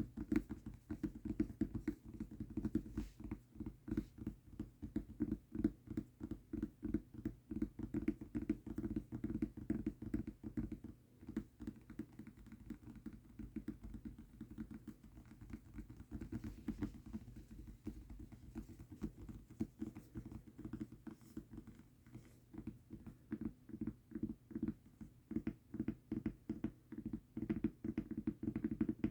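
Rapid, continuous tapping on a mousepad, several taps a second, quieter through the middle of the stretch.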